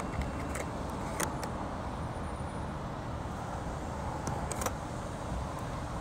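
Steady low rumble of vehicle and traffic noise at a gas pump, with a few short sharp clicks as a card is pushed into the pump's chip reader.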